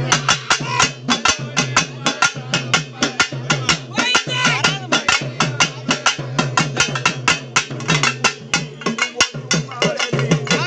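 Pambai, the Tamil pair of laced cylindrical drums, played in a fast, steady rhythm of sharp stick strokes, several a second.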